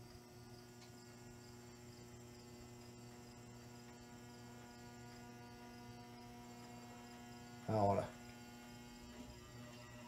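Lesslie Locke spinner ceiling fan motor buzzing steadily on a solid-state variable speed control turned way down, barely turning and near stalling. The motor is struggling against a stiff lower bearing that needs work.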